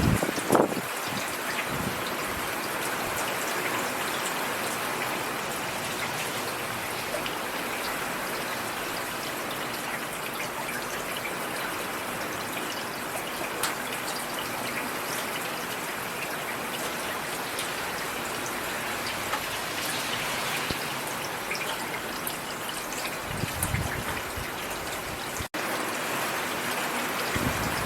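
Steady rain falling, with scattered individual drops ticking through it. A low thud comes about half a second in and again a few seconds before the end, and the sound cuts out for an instant shortly after the second one.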